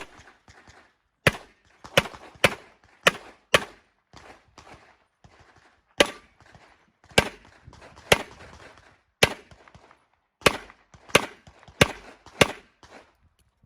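Handgun shots fired in quick pairs and short strings during a practical pistol stage, about a dozen sharp cracks in all, with pauses of one to two seconds between groups.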